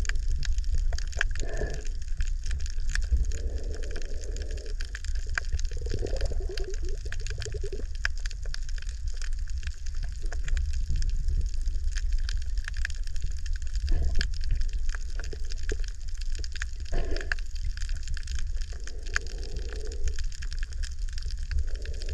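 Underwater ambience picked up by a camera in shallow water: a steady low rumble under a constant fine crackling of tiny clicks, with a muffled whooshing swell every few seconds.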